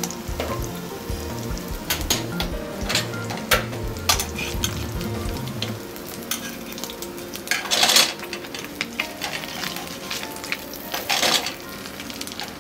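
Sea bream skin frying slowly in butter in a pan, a steady sizzle. Over it come light knocks and short rasping scrapes of a lemon being zested on a hand grater, two of them louder in the second half.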